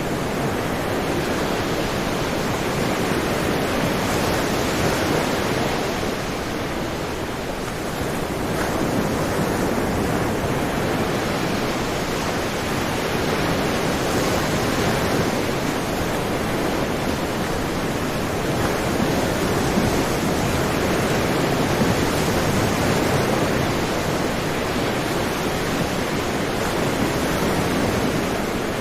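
Sea waves washing onto the shore in a steady, continuous wash, swelling gently and easing off a little about seven seconds in.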